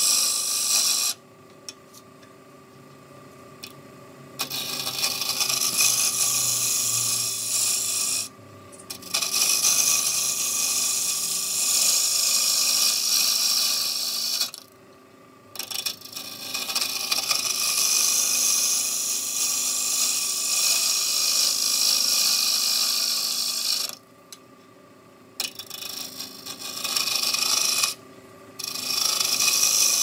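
Wood lathe spinning a glued-up wooden vase blank while a hand-held turning tool cuts it, a high scraping sound. The cut breaks off five times, for about half a second to three seconds each, as the tool comes off the wood. A steady hum runs underneath the whole time.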